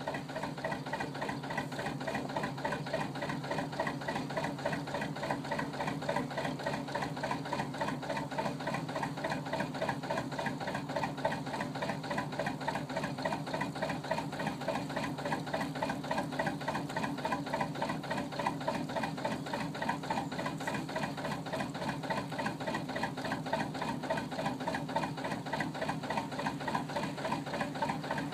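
Narrowboat's Lister JP2 two-cylinder diesel engine running steadily under way, with an even, unchanging beat.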